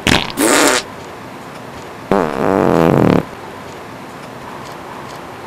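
Two loud farts: a short, broken double blast right at the start, then a longer one about two seconds in that drops in pitch and lasts about a second.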